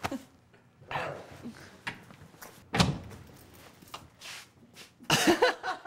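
A wooden door being handled, with a few thumps and knocks, the loudest about three seconds in, and a short burst of voice near the end.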